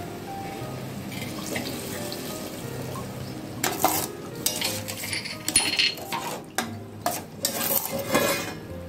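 Wooden spatula stirring taro pieces in curry in a stainless steel kadai, knocking and scraping against the pan with the liquid sloshing and sizzling. The stirring starts about three and a half seconds in, as repeated sharp knocks.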